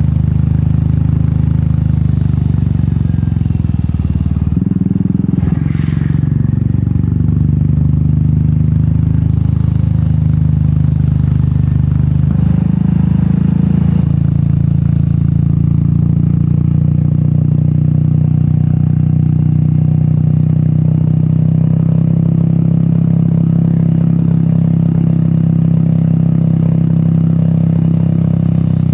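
Royal Enfield Meteor 350's single-cylinder engine running through an aftermarket sport exhaust while riding at a steady pace. The engine note shifts briefly about five seconds in and changes again around thirteen seconds.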